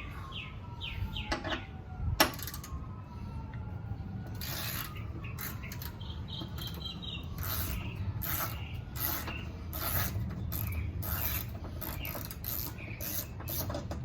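Hand ratchet clicking in short runs as screws are backed out of a car door. A distant siren wails over the first few seconds.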